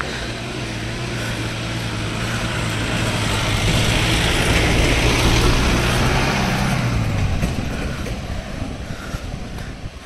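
A motor vehicle's engine passing by, its hum growing louder to a peak about five seconds in, then fading away.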